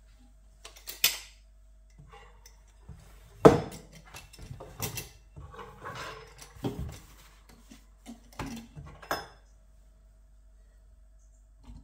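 Stainless-steel potato ricer being handled and set down on the counter over a pot: a string of separate metal clinks and knocks, the loudest about three and a half seconds in.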